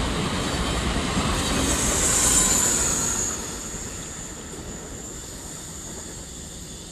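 A Trenord train of double-deck coaches, with an E464 electric locomotive at the rear, rolling past with steady wheel and rail noise. A high-pitched squeal rises about two seconds in, and then the noise drops away and fades as the train moves off.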